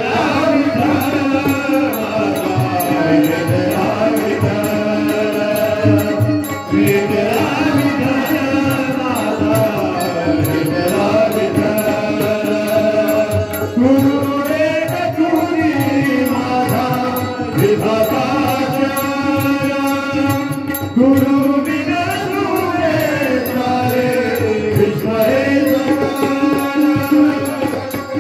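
Marathi devotional song to Vitthal sung in a powerful voice, with percussion keeping a steady beat.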